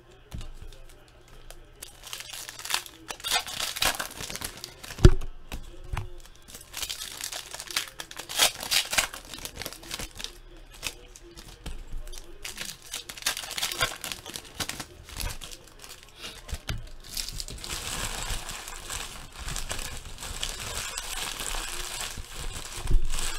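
Trading cards being handled: slid, flipped through and dealt one by one onto a stack, with crinkling of foil pack wrappers and a sharp knock about five seconds in. The rustling turns steadier in the last few seconds.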